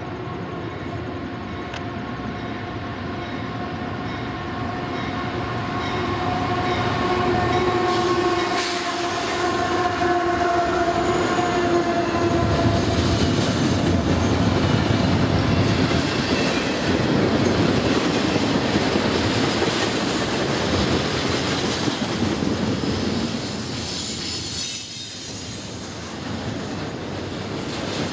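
Canadian Pacific freight train passing close by. For the first twelve seconds or so the diesel locomotive's horn sounds and grows louder as it approaches. Then a loud rolling rumble of the locomotive and double-stack container cars going by, wheels clattering with some squeal on the rails.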